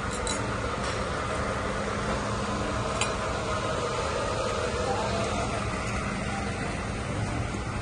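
Restaurant dining-room ambience: a steady hum of air conditioning under a murmur of distant voices, with a few brief clicks near the start and about three seconds in.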